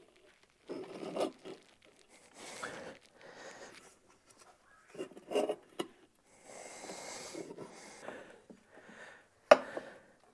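Tire spoons levering a lawn tractor tire's rubber bead back over the rim: irregular scrapes and rubs, with a sharp click about nine seconds in.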